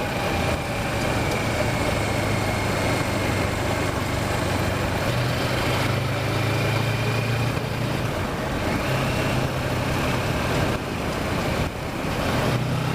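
Kawasaki Versys motorcycle engine running on the move, with a steady rush of wind over it. The engine note shifts up and down a few times as the revs change through the corners.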